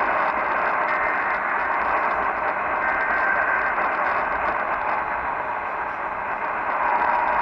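Steady radio static hiss from a weak, noisy broadcast signal, with faint steady tones showing through it, one coming in near the end.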